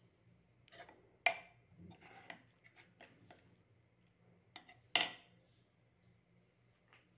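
Metal spoon clinking and scraping against a cooking pot while stirring small fish and vegetables. Two sharp clinks stand out, about a second in and about five seconds in, with softer scrapes and taps between them.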